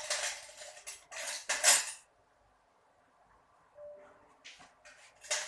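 Metal forks clattering and clinking together as they are gathered up. It lasts about two seconds, stops, and starts again right at the end.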